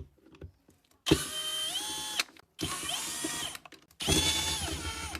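Cordless drill-driver run in three short bursts of about a second each. Each burst speeds up, holds, then winds down, as it backs out screws to open the refrigerator's rear compressor cover.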